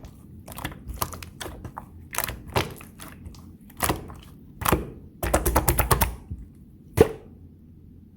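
Slime being handled and pressed by hand, giving sharp clicking pops as air pockets burst. There is a quick run of clicks just past the middle and one louder pop near the end.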